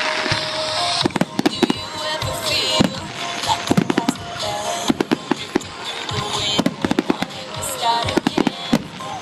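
Fireworks display: many sharp bangs in irregular quick succession, with bursts of high crackling, over music.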